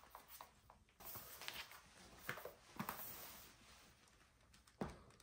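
Faint handling sounds from a laptop being checked over: a few soft taps and clicks, the loudest a sharp click near the end.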